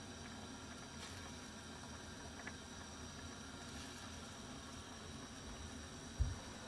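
Coconut-milk curry simmering in a pan, a faint steady bubbling hiss, with one short low thump near the end.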